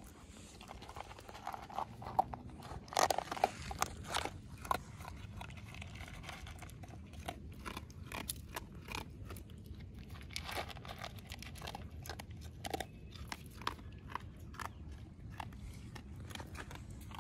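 Dog chewing dry kibble: a string of sharp, irregular crunches, thickest a few seconds in.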